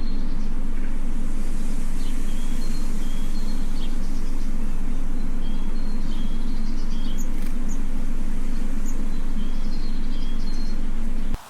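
A steady low mechanical drone, with short high chirps repeating over it. It cuts off abruptly near the end.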